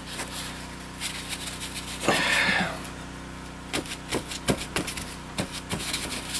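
Paper towel rubbing oil around the inside of a cast iron frying pan. There is a longer, louder rub about two seconds in, then a run of quick small scrapes and clicks in the second half, over a faint steady hum.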